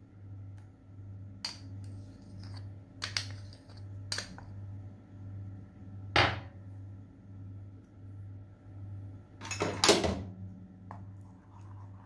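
Metal spoon knocking and clinking against a stainless steel saucepan as a thick nut paste is scraped off into hot caramel: a few light clinks, then two louder knocks about six and ten seconds in, over a steady low hum.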